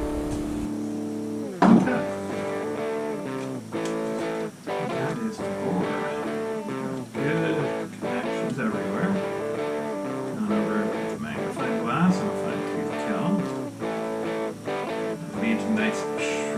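Guitar music: single plucked notes and chords in a steady run, with one sharp, loud strum about two seconds in.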